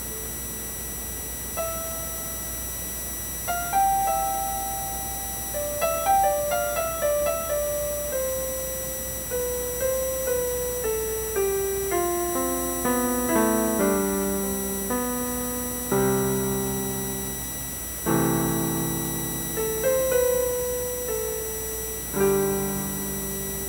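Yamaha PSS-A50 portable keyboard's piano voice playing a slow melody of single notes that mostly steps downward, then fuller chords in the second half, each note decaying after it is struck.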